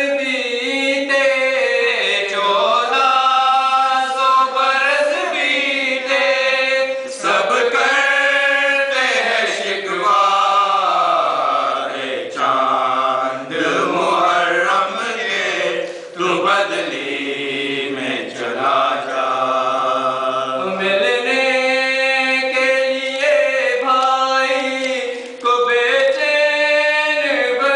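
A group of men chanting an Urdu noha, a Muharram lament, in unison and unaccompanied: slow melodic lines that rise and fall with long held notes.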